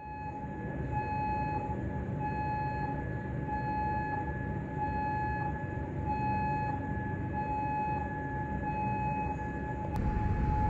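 Civil defence warning siren sounding one steady high tone that pulses in a regular beat of a little over a second, over a low rumble. Near the end a click is heard and the rumble grows louder.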